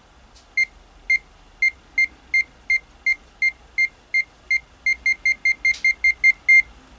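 ZOYI ZT102A multimeter's beeper sounding in non-contact voltage mode: short high beeps about three a second, speeding up to about five a second and getting a little louder near the end as the meter senses the voltage field of a live mains cable.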